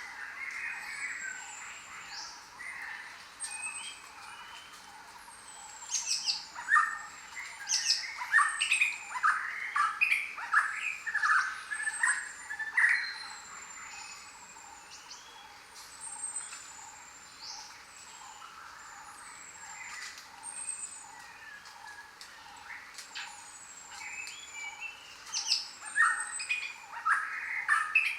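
A chorus of several jungle birds calling. Short, high, falling whistles repeat throughout, and bursts of quicker, lower chirping calls come about six to thirteen seconds in and again near the end, all over a steady background hiss.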